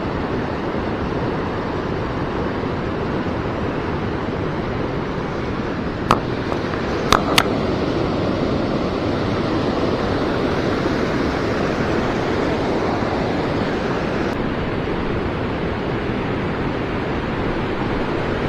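Steady rush of flowing river water, with three short sharp clicks about six to seven seconds in.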